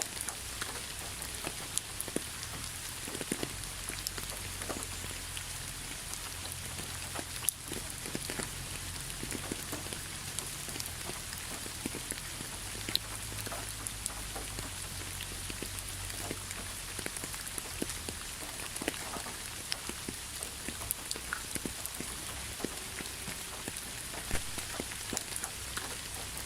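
Steady rain falling, a continuous hiss with scattered drops ticking sharply on a surface, over a low rumble.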